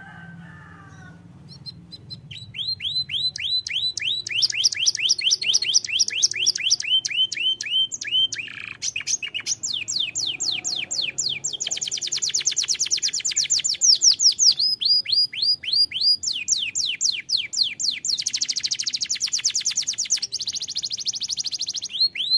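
Yellow domestic canary singing a long song of tight, fast rolling trills: each phrase is a rapid run of repeated high notes, and the song switches to a new phrase every few seconds. It starts about two seconds in and stops suddenly at the end.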